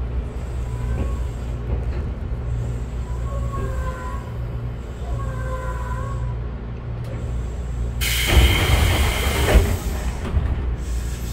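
Inside a Tobu 6050 series train car: a steady low rumble with faint wavering whines. About eight seconds in, a louder hissing rush comes in, lasts about two seconds and then eases off.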